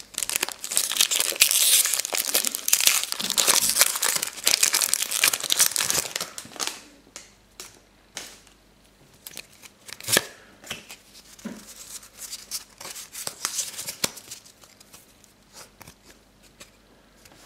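Pokémon Dragons Exalted booster pack's foil wrapper torn open and crinkled for about six seconds. After that come quieter, scattered clicks and rustles of the trading cards being handled and slid against each other.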